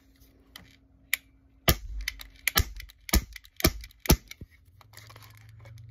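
CO2-powered airsoft pistol firing about five sharp shots in quick succession, roughly half a second apart, after a couple of lighter clicks.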